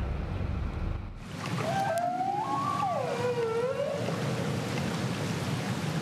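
Humpback whale call over a steady ocean hiss: one long call that rises in pitch, then falls and levels off. About a second in, a low wind rumble gives way to the recording.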